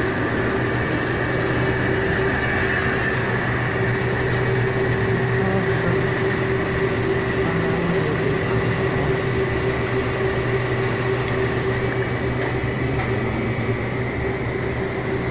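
LZ250 tailings recovery unit running: its dewatering vibrating screen and drive motors give a steady machine hum with a constant whine above it, unchanging throughout.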